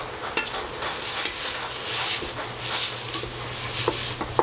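Fried rice with hedgehog mushrooms, broccolini and kale sizzling in a pan as it is stirred, the hiss swelling and easing in waves, with a few sharp clicks of a utensil against the pan.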